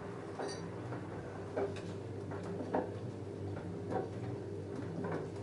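LG F10A8HDS5 front-loading washing machine tumbling a load of jeans in the wash: a steady motor hum with irregular knocks and clicks, about one or two a second, as the heavy denim drops in the drum.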